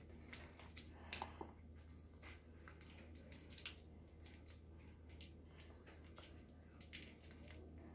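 Faint crinkling and soft ticks of a foil Velveeta cheese-sauce pouch being squeezed out over a pot, over a steady low hum; otherwise near silence.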